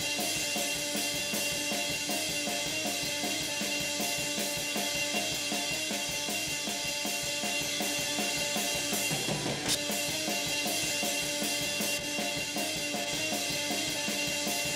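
Rock drum kit playing a steady beat as heard through the overhead microphones, with cymbals ringing over snare and kick hits. It is being run through a tube-style multiband compressor as its settings are adjusted.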